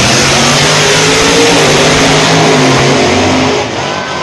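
Two drag racing cars, among them the silver Chevrolet Lumina, launching and running at full throttle down the strip: loud engine noise with the pitch shifting as they go. Near the end the sound drops to a quieter car run.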